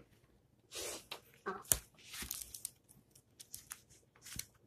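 Scattered rustling and clicking close to the microphone, with a brief vocal sound about a second and a half in and a sharp click just after it.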